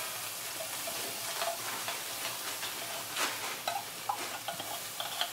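Canned corned beef frying in hot oil in a pan, a steady sizzle, with a few short clicks and scrapes of a spoon working the meat.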